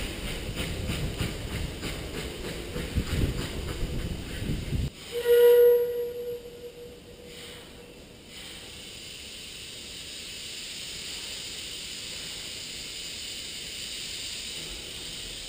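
Narrow-gauge steam train rumbling over a timber trestle with rapid wheel clatter, cut off abruptly about five seconds in. A single-note steam whistle from the 2-6-2T locomotive then sounds once, loud at first and fading over a few seconds, followed by a steady hiss.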